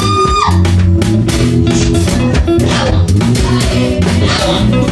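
Live band music with bass guitar, guitar and drum kit playing a steady beat; a held sung note fades out just after the start.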